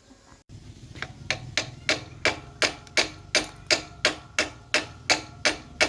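A hammer striking metal in a steady rhythm, about three blows a second, each blow ringing briefly. The blows grow louder over the first couple of seconds. A low hum runs underneath.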